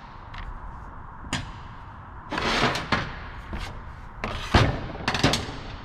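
Tools and chainsaw parts being handled on a workbench: a series of sharp clicks and knocks, with a short rattle about two and a half seconds in and a heavier thud about four and a half seconds in.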